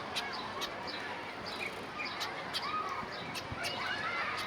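Zebra finches calling: many short, sharp high notes and curving chirps over a steady hiss.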